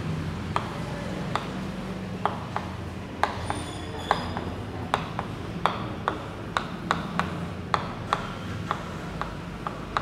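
Chalk tapping and dabbing on a chalkboard as small circles are drawn, a string of sharp, irregular clicks about two a second.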